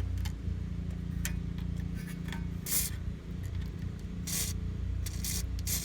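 Several short hisses of a WD-40 aerosol can being sprayed onto rusty muffler bolts and hanger mounts, over a steady low hum.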